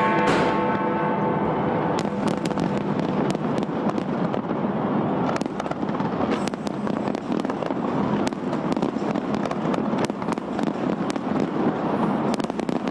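Large fireworks display: a continuous dense crackle of bursting shells, with many sharp bangs scattered throughout.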